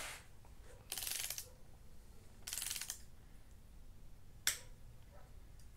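A torque wrench's ratchet clicking in two short runs as it is swung back on a cylinder head bolt of a 12-valve VR6 engine, then one sharp single click about four and a half seconds in.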